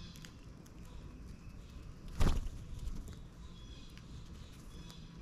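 Outdoor yard ambience with scattered short bird chirps. About two seconds in comes a sudden loud thump close to the microphone, with a smaller one just after.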